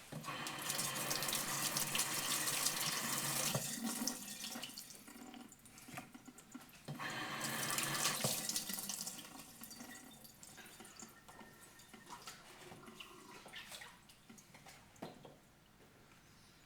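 Water running from a tap in two spells, the first about three and a half seconds long, the second about two seconds a few seconds later, followed by quieter scattered clicks and knocks of handling.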